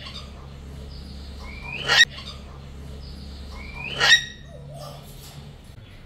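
Sulphur-crested cockatoo giving two loud, harsh calls about two seconds apart. Each call opens with a short rising whistle.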